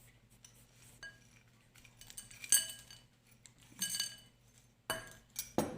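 Spoon clinking against a bowl as oats are spooned in: several sharp chinks, the loudest about halfway through.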